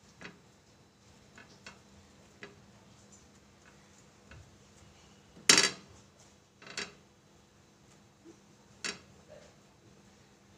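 Steel spatula clinking and scraping against an iron tawa while a sandwich is pressed and shifted on it, in a few scattered clinks; the loudest comes about halfway through, with two more about a second and three seconds after it.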